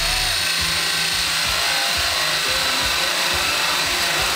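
Makita cordless drill spinning a spade bit, boring a hole into a wooden board with a steady whine.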